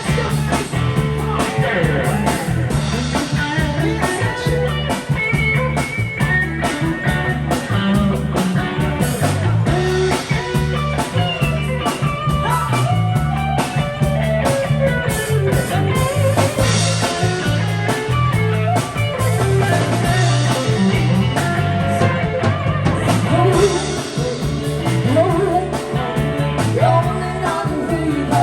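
A rock band playing a cover song with drum kit, guitar, bass and singing, at a steady beat.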